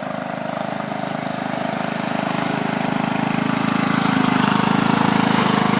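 Riding lawn mower engine with dual glasspack mufflers running steadily, getting louder as it draws near.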